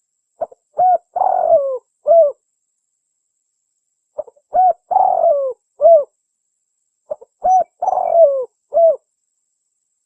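Spotted dove (tekukur) cooing: three repeated phrases about three seconds apart, each a quick coo, a longer coo that falls in pitch, and a final short coo.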